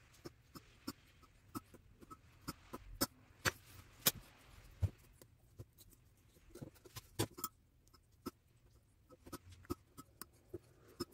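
Metal fish-bone tweezers and a knife clicking and tapping against a plastic cutting board and a glass bowl while pin bones are pulled from a raw fish fillet: a quick, irregular run of short, sharp clicks.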